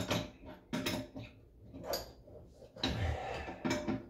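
A threaded water-supply fitting under a toilet tank being cranked tight: a handful of separate sharp clicks and knocks at uneven intervals, with a fuller knock about three seconds in.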